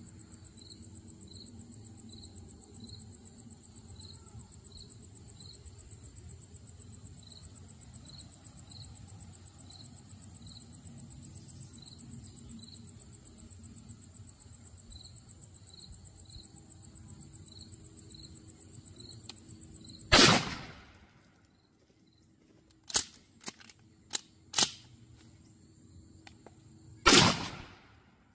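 Insects trill steadily with a regular chirp, then a Mossberg 500 pump-action .410 shotgun fires once about twenty seconds in. A few sharp clacks of the pump action being worked follow, and the shotgun fires a second time near the end.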